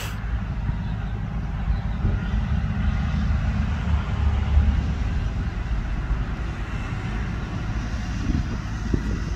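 Compact tractor's engine running steadily as the tractor drives with a rear-mounted rotary tiller attached.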